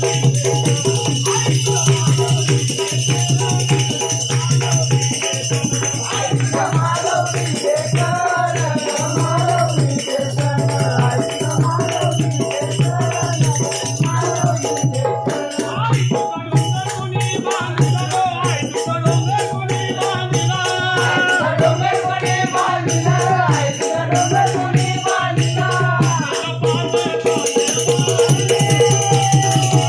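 Marathi devotional song: a voice singing a melody over a steady, fast rattling percussion beat.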